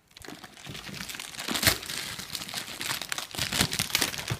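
Packaging crinkling and rustling as it is handled and unwrapped, an irregular run of crackles with a louder crunch about a second and a half in.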